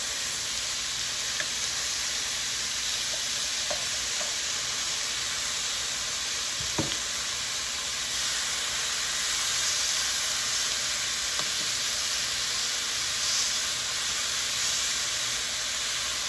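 Beef strips sizzling steadily as they sear in a hot electric skillet, with a few faint clicks as the strips are moved about by hand.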